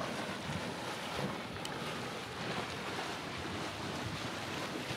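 Hydrothermal mud pot boiling and spitting: a steady rushing hiss with faint small pops scattered through it.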